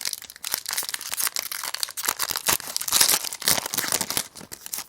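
Trading card pack wrapper being torn open and crinkled, a dense, fast crackling that dies away near the end.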